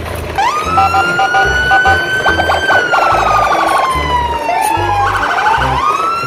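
A siren wailing: it rises about half a second in, holds, slides slowly down, then rises again near the end, over background music with a steady bass beat.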